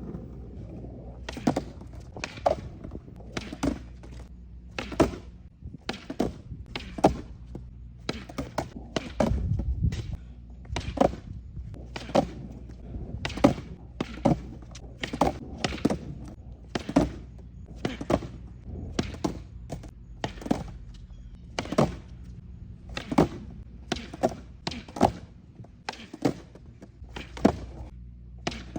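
Skateboard hitting a hard floor again and again during ollie attempts: sharp thunks about one a second, from the tail popping down and the board landing.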